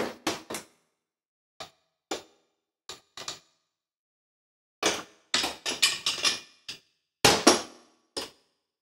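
A valve spring compressor and loose valve parts (keepers, spring, retainer) being handled on a cylinder head during valve removal: short, sharp metal clicks and knocks. They come a few at a time at first, then as a dense clatter from about five seconds in.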